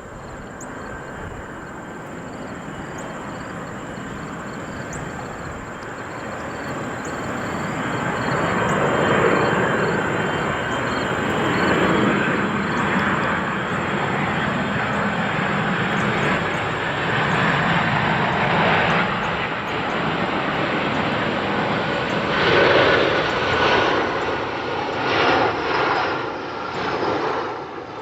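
Jet airliner passing close by, its engine noise building over several seconds and then staying loud, with a high whine that slowly falls in pitch.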